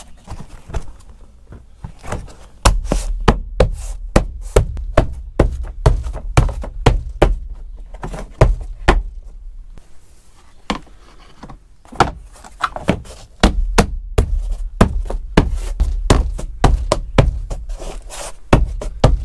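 Plastic floor scuff plate trim being knocked and pressed down by hand onto the truck's door sill, a quick run of sharp knocks and thumps as its clips seat. There are two such runs, with a pause of a few seconds in the middle.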